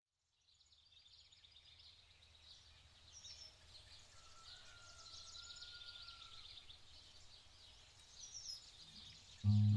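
Quiet outdoor ambience fading in: many small birds chirping in a dense, high-pitched chorus over a low hum. Music comes in loudly near the end.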